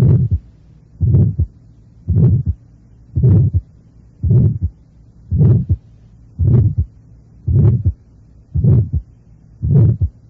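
Recorded heart sounds heard through a stethoscope: a regular heartbeat at about one beat a second, ten beats, each carrying a short systolic murmur, here an innocent (functional) systolic murmur.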